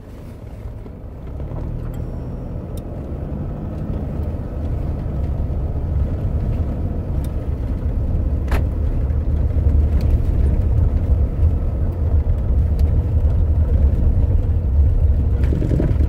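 Cab rumble of a Toyota Hilux on the move, growing louder over the first few seconds as it picks up speed. A few sharp knocks come from under the dashboard: the brake pedal knocking because of play in its mounting.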